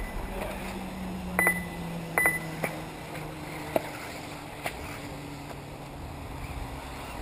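Radio-controlled 1/10 scale 4WD off-road buggies running on a dirt track, heard as a steady low hum that slowly drops in pitch. Several short sharp clicks come through it, two of them with a brief high beep in the first couple of seconds.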